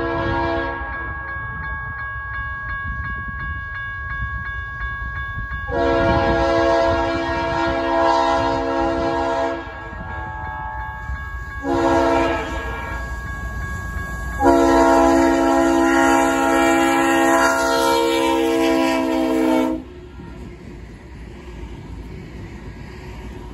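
Nathan RS-3L three-chime air horn on a BNSF Dash 9-44CW locomotive sounding the grade-crossing signal, long, long, short, long, ending about 20 seconds in. A crossing bell rings underneath, and the locomotive rumbles past near the end.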